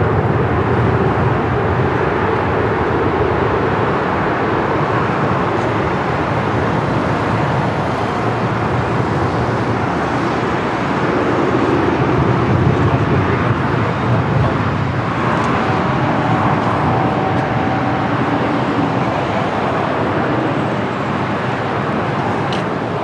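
Steady roar of airport and road traffic, swelling a little as a city bus drives past about halfway through.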